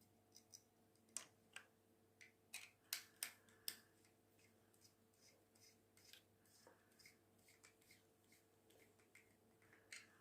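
Scattered sharp clicks and small snips of electrical wires and crimp terminals being handled and fitted, a dense cluster in the first four seconds, then fainter, sparser ticks.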